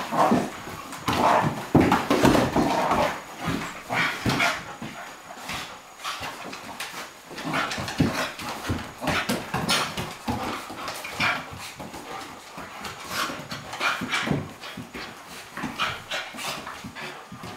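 A flat-coated retriever and a Cairn terrier play-fighting, making a continuous run of short, irregular dog noises and panting as they mouth at each other.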